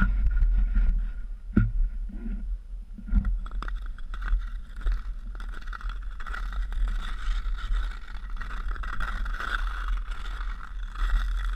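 Ice skate blades scraping and gliding over ice glazing a paved trail, the scrape growing stronger in the second half, with scattered clicks early on and a steady low rumble underneath.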